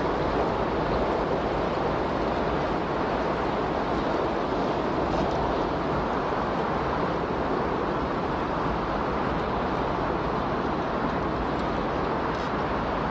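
Steady, even rushing noise with no distinct events, like a surf or pink-noise masking bed.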